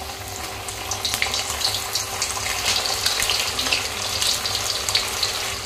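Batter-coated paneer pieces sizzling and crackling in hot oil in a kadhai as they are dropped in one after another; the sizzle grows louder about a second in as more pieces go in.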